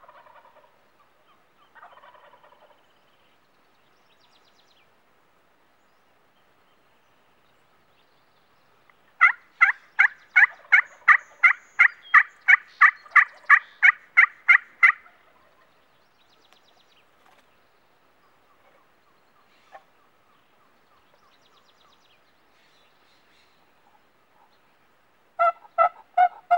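Turkey yelping: a loud run of about eighteen evenly spaced yelps, roughly three a second, lasting some six seconds, then another run of yelps starting near the end.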